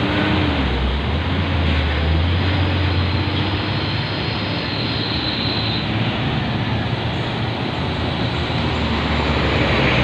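Heavy diesel truck engine running steadily under a loud, even rushing noise.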